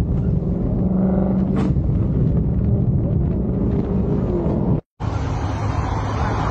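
Steady road and wind noise with a low engine hum from a vehicle travelling at highway speed. It cuts off abruptly about five seconds in, and a hissing roadside traffic noise takes over.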